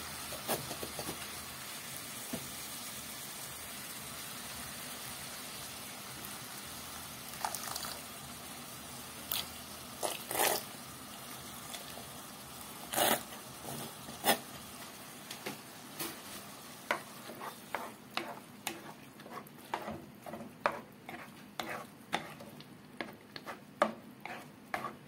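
Ground beef sizzling in a frying pan as bolognese sauce is poured in and stirred with a spoon. The steady sizzle grows quieter in the second half, with scattered clicks and scrapes of the spoon against the pan that come more often toward the end.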